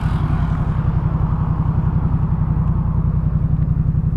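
2018 Yamaha MT-07's parallel-twin engine running steadily at a constant pitch through its Jeskap K4 full aftermarket exhaust, with a loud, even pulsing.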